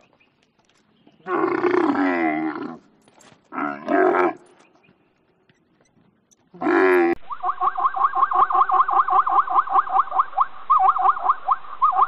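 Dromedary camels calling: three separate groaning calls, the first the longest. About seven seconds in, the sound switches to zebras calling, a rapid run of short, high barking calls at about four a second.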